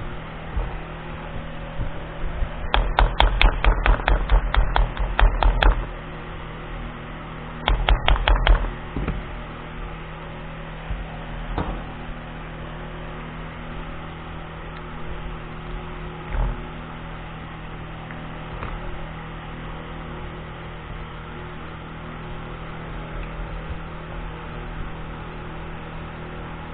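Two bursts of rapid clicking and knocking, as of pistol parts being handled and tapped during disassembly, over a steady hum. A few single knocks follow.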